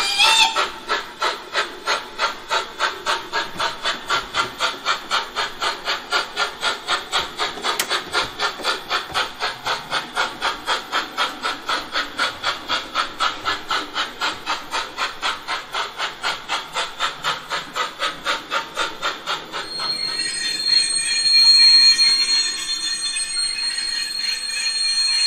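Gauge 1 model of a Prussian T3 (Baureihe 89) steam tank locomotive running, its ESU LokSound 5 sound decoder playing steady steam exhaust chuffs at about four a second. About twenty seconds in, the chuffing stops and gives way to a hiss with a steady high tone.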